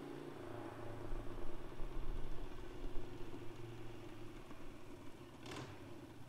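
Engine of a 2006 Harley-Davidson Sportster 1200, an air-cooled V-twin, running in the distance as the reverse trike built on it approaches, mixed with a car driving away. A short sharp noise comes about five and a half seconds in.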